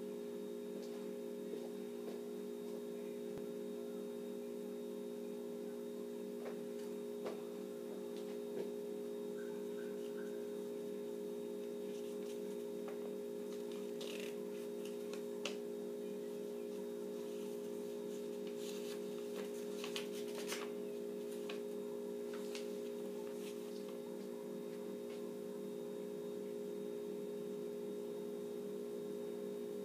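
A steady hum of a few low tones, with faint crinkling and rustling of a folded sheet of paper being handled in the middle.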